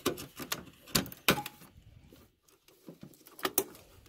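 Sharp clicks and knocks as a Corsair Vengeance LPX DDR4 memory stick is pushed into its motherboard slot inside a desktop PC case. There are a couple of strong clicks about a second in and two close together near the end.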